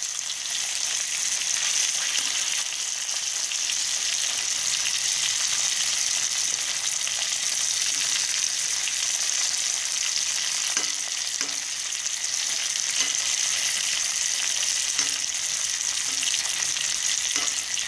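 Marinated chicken pieces sizzling steadily in hot coconut oil on a low flame. A few faint spatula clicks come through as the pieces are turned over.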